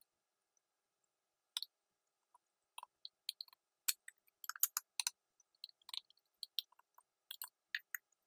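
Two metal forks shredding slow-cooked beef, their tines clicking and scraping against the sheet pan and the crockpot. The clicks are light and irregular, starting about a second and a half in.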